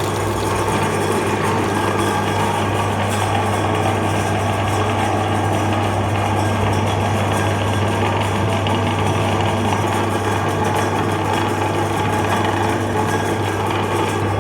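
Electric meat grinder running steadily, its motor giving a constant low hum under a busy mechanical whir.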